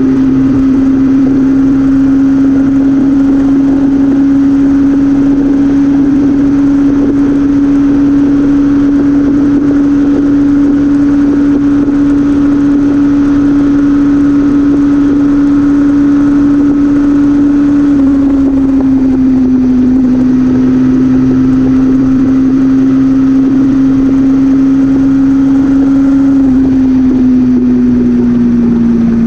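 Motor vehicle engine running steadily at cruising speed, with a constant drone over road and wind rumble. Its pitch drops slightly about two-thirds of the way through and again near the end, as the vehicle eases off.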